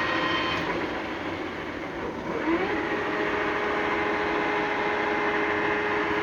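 Large engine lathe running with a steady gear whine. About half a second in the whine fades as the spindle speed changes, then a rising whine about two and a half seconds in settles into a new steady, lower hum.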